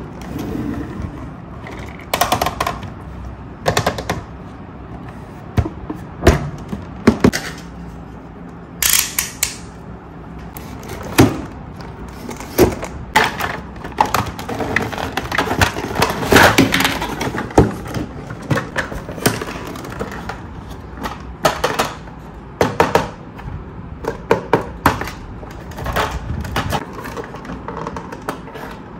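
Hard plastic toy track parts being handled, with irregular sharp clicks, knocks and rattles and a brief rustle about nine seconds in.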